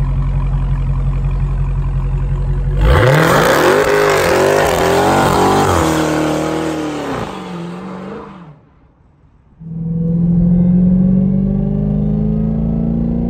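A Dodge Charger's engine idles, then revs hard in repeated rising and falling swoops during a tyre-smoking burnout, cutting off about eight seconds in. After a brief near-silent gap, an engine runs steadily with its pitch slowly climbing.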